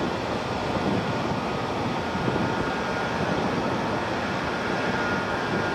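Steady engine drone mixed with rushing wind and water noise, from a craft running at speed over open water. The level stays even throughout, with a couple of faint steady high tones in the hum.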